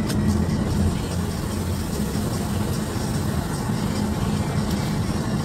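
Steady road and engine noise heard from inside a car driving on a wet road, a low rumble with tyre hiss.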